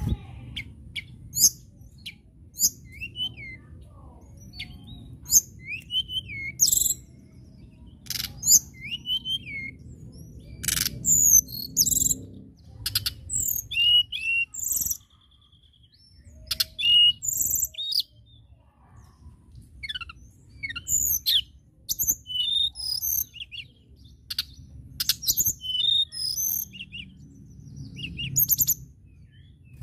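Male blue flycatcher (tledekan, Cyornis) singing in a cage: repeated bursts of high, sharp whistled notes and quick twittering phrases, separated by short pauses. A faint low rumble runs underneath.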